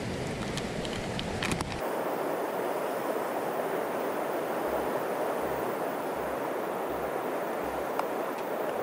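Steady, even rush of the Chattooga River's flowing water. It is preceded in the first couple of seconds by a few sharp clicks of handling noise.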